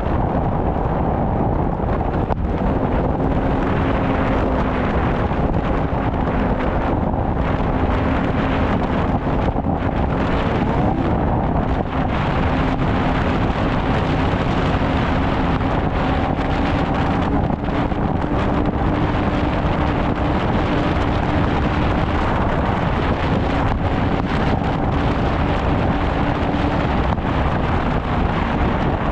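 Snowmobile engine running steadily under way, its tone holding even and creeping slightly higher in pitch, buried in heavy wind noise on the microphone.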